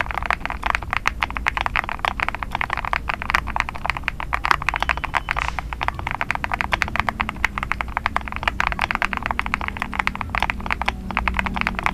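Fast, continuous typing on a GMK67 mechanical keyboard whose switches have just been lubed, a dense run of key clacks many per second.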